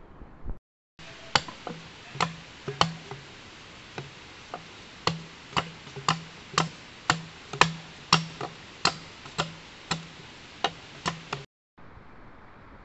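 Sharp, ticking clicks, mostly about two a second in a steady beat, many with a short low note under them, cut in abruptly and ending abruptly near the end.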